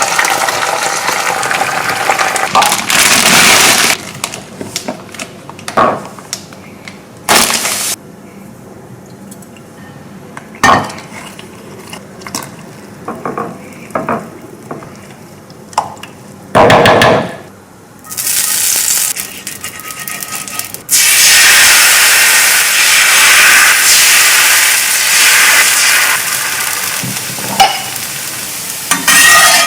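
Kitchen cooking sounds: pans and utensils knocking and clinking, then a steady sizzle of food frying in a pan from about twenty seconds in.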